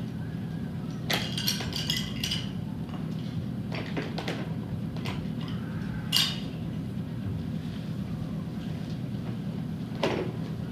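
Wooden toy blocks clacking against one another and against a plastic storage bin as they are handled: a quick cluster of knocks a second or two in, single knocks later, the sharpest about six seconds in. A steady low hum runs underneath.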